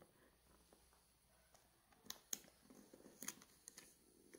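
Near silence, then from about two seconds in a few faint clicks and taps of fingers handling small plastic Playmobil toy pieces.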